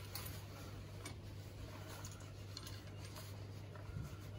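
Faint scattered clicks and ticks of small metal plumbing parts and tools being handled while preparing a compression fitting, over a steady low hum.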